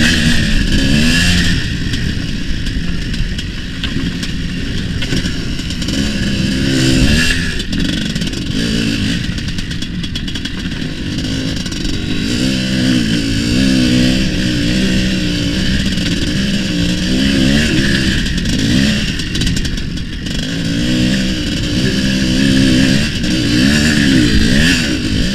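Tuned single-cylinder two-stroke engine of a homemade IZh Planeta cross-enduro motorcycle with a resonator exhaust, being ridden hard: it revs up and drops back again and again.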